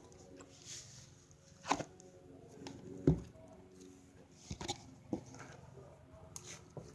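Slime being squeezed and poked, making irregular sticky clicks and pops, the loudest about three seconds in.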